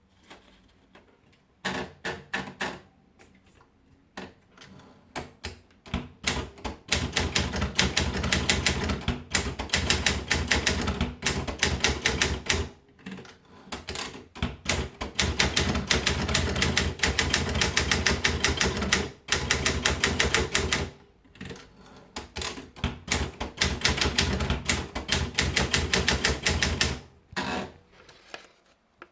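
Olympia Monica manual portable typewriter being typed on: a few scattered keystrokes, then fast, dense runs of key strikes clattering, broken by short pauses, ending with a few last strikes.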